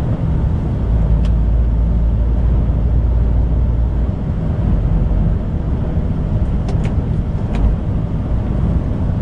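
Steady low drone of a lorry's engine and tyres heard inside the cab while cruising on a motorway, with a few faint clicks.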